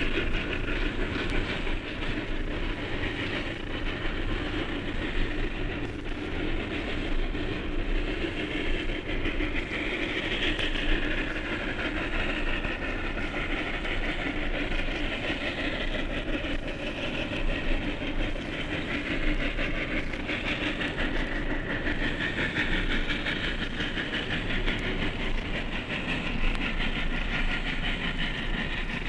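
Steam-hauled train running, a steady rush of noise with wheels clattering on the rails. It starts suddenly after a silence.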